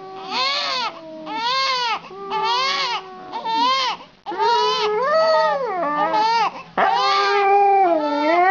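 Baby crying in repeated wails that rise and fall in pitch, about one a second. At times a second voice holds longer, steadier notes alongside the cries.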